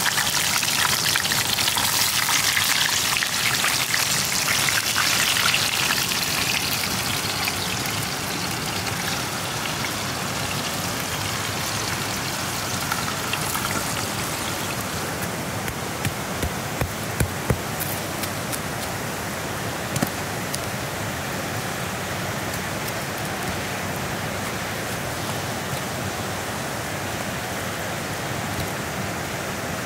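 Whole chicken sizzling in a hot cast-iron pan over embers, the hiss strongest in the first several seconds and then dying down. After that a steady rush of flowing creek water, with a few sharp crackles from the campfire around the middle.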